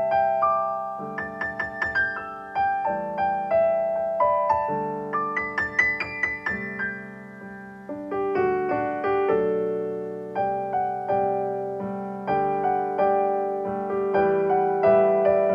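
Solo piano playing a melody over chords. A quick run of high notes comes about six seconds in, and there is a brief softer passage just before eight seconds.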